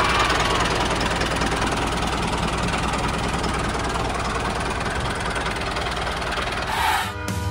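Tractor engine running steadily at low revs with a fast, even pulse. About seven seconds in it cuts off and music begins.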